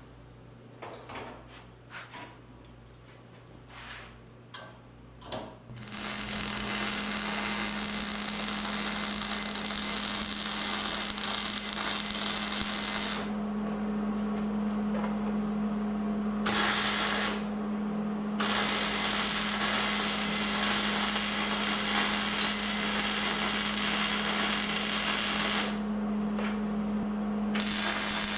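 MIG welder laying long beads of weld on steel mount brackets: a steady crackling, sizzling arc with a constant buzz underneath. It starts about six seconds in, after a few light clicks, and stops briefly twice as the trigger is released between runs.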